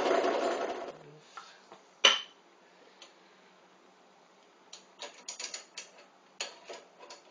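A drill cutting into a metal part, its running noise fading out within the first second. Then one sharp metallic clink about two seconds in, and a scatter of small metal clicks and clinks near the end.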